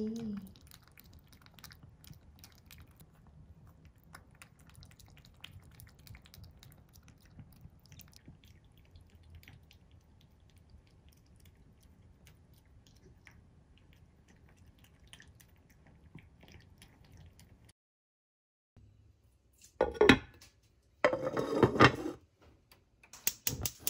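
A cat eating wet food, faint licking and chewing. After a short silence, a loud knock and then about a second of clattering from the lid of a black earthenware pot, then a few quick clicks.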